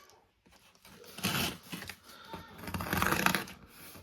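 Cordless 1/2-inch impact wrench running in two short trigger bursts, a brief one about a second in and a longer one near the middle, each a fast rattling hammer.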